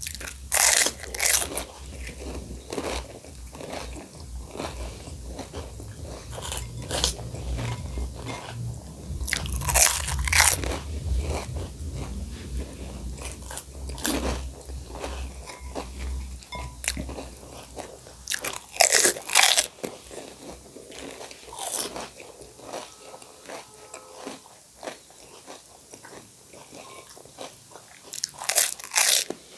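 Pani puri being eaten: the crisp fried puri shells crunching at each bite, with chewing in between. The loudest crunches come about 1, 10, 19 and 28 seconds in, over a low hum that fades out about two-thirds of the way through.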